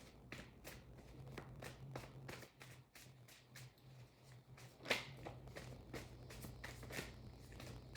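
Tarot cards being shuffled and handled: a quiet run of quick flicks and riffles, with a sharper slap about five seconds in and another near seven.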